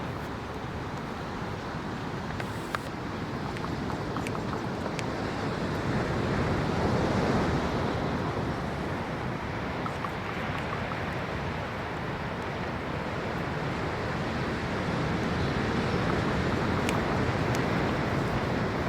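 Steady surf and wind noise, with a few scattered sharp clicks.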